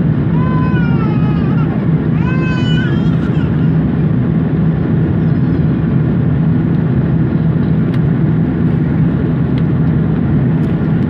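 Airbus A330-300 cabin noise during the climb after take-off: a steady low drone of engines and airflow. Two short wavering high-pitched cries rise and fall over it in the first three seconds.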